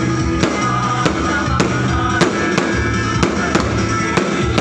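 Loud music with a steady drum beat and a bass line.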